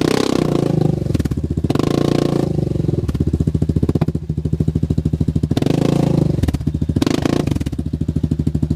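Yamaha Grizzly 700 ATV's single-cylinder engine working under load, revving up and easing off again several times as the quad crawls over rough ground.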